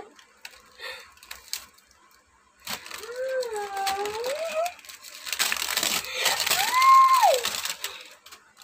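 Wrapping paper crinkling and rustling as a small gift box is unwrapped, loudest in the second half. Over it a voice makes two long, drawn-out wordless exclamations with gliding pitch, one a few seconds in and one near the end.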